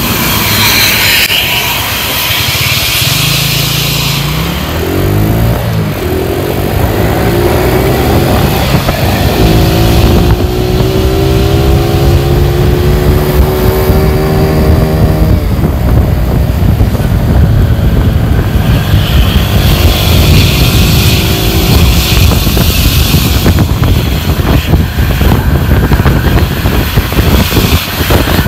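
Vehicle engines at speed on the road with a heavy low rumble. The engine pitch climbs briefly about five seconds in, then rises steadily for several seconds in a long acceleration, with wind hissing over the microphone at times.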